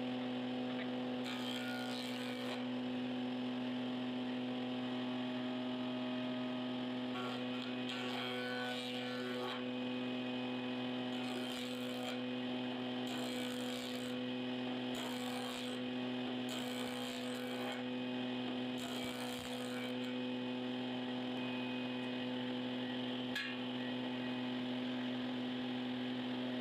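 Combination jointer and table-saw machine running with a steady motor hum. A board is fed over the jointer cutterhead in short passes, heard as about seven brief bursts of cutting noise in the first two-thirds.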